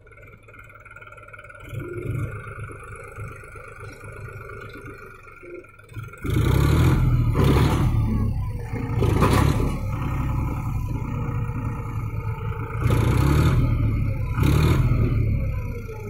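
John Deere tractor's diesel engine running quietly, then revving up sharply about six seconds in and holding at high revs with several swells, working the hydraulics that tip the trailer of mud.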